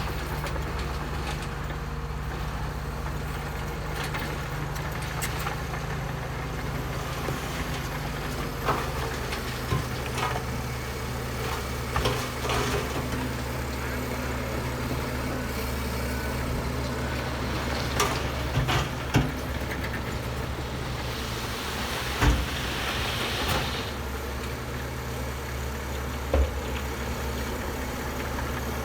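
Heavy diesel earthmoving machinery running steadily, its engine drone shifting slightly about a third of the way in. Scattered sharp clanks and knocks are heard throughout, and a brief hiss comes about two-thirds of the way through.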